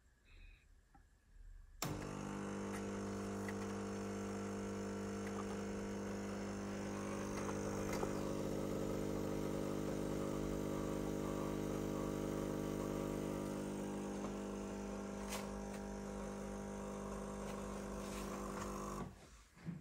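Carimali K95L fully automatic espresso machine's pump running steadily while it brews the espresso shot for a cappuccino. It starts suddenly about two seconds in and cuts off shortly before the end, with a couple of faint clicks in between.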